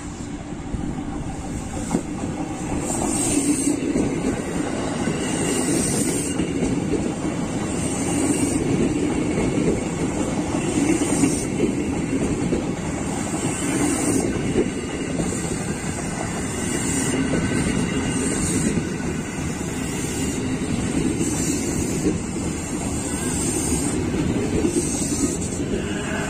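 Ex-Tokyo Metro 6000 series electric commuter train running past close by: a steady rumble of wheels on rail with a higher rattle that comes back about every two and a half seconds as the cars go by. It grows louder over the first few seconds as the train draws level.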